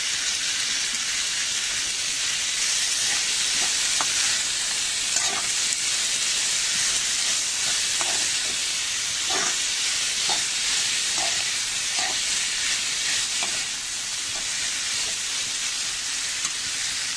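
Shredded cabbage, green peas and boiled minced meat sizzling steadily in hot oil in a kadai, stirred and tossed with a metal spoon that scrapes and clicks against the pan every so often.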